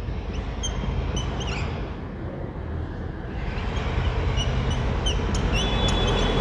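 Whiteboard marker squeaking in short, high chirps while writing, over a steady low rumble that grows louder after about three seconds.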